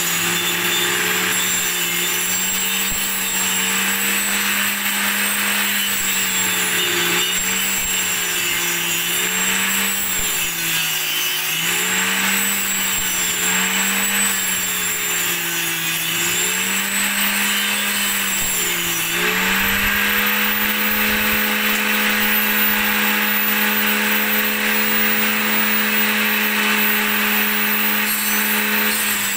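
Table saw ripping teak into thin strips: the motor's hum sags in pitch again and again as the blade bites into the wood, with a rasping cutting noise over it. About two-thirds of the way through the cut ends and the saw runs free at a steady, slightly higher pitch.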